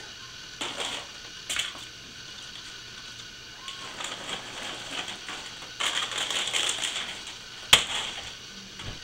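Plastic food packaging crinkling and crackling as it is handled and unwrapped: two short rustles, then a longer stretch of crinkling. Near the end comes a single sharp knock, the loudest sound.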